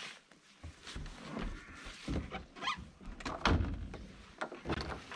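Irregular knocks, thuds and scraping as a kayak is handled and lifted down off a wooden rack on an ATV.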